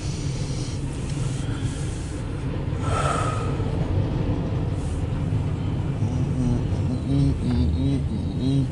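CSX intermodal freight train's container and trailer cars rolling past, a steady rumble and clatter of wheels on rail heard from inside a vehicle, with a brief sharper squeal about three seconds in. In the last few seconds a person hums a few wavering notes over it.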